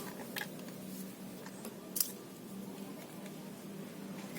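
A few sharp, irregular clicks, the loudest about two seconds in, over a steady low hum.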